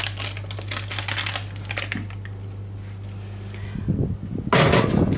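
Light clicks and knocks of a batter-filled baking tin and its parchment lining being handled, over a steady hum. From about four and a half seconds in, a loud steady rush of a running oven's fan, heard with the oven door open.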